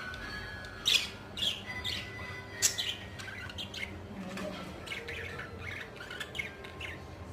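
Budgies chirping and squawking in a quick, scattered run of short, sharp calls, loudest about a second in and again near three seconds.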